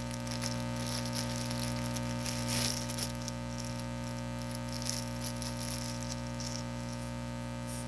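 Steady electrical mains hum, with faint rustling and light rattling as cables and plastic-bagged accessories are handled.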